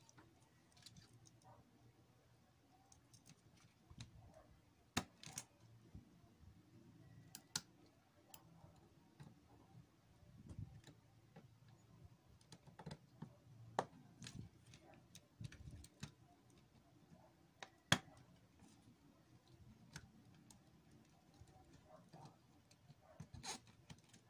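Faint, scattered clicks and taps from handling the open plastic casing and wiring of a portable CD player with fingers and tweezers, a handful of them sharper than the rest.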